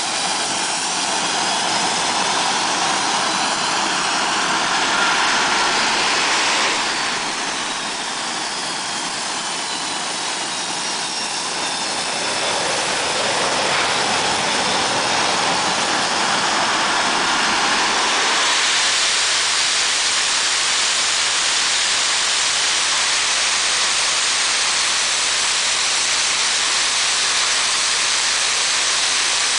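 EA-6B Prowler's two J52 turbojet engines running on a carrier catapult: a loud, continuous jet rush with whining turbine tones that glide in pitch. About eighteen seconds in the sound broadens into a steadier, harsher high rush, typical of the jet running up to full power for launch.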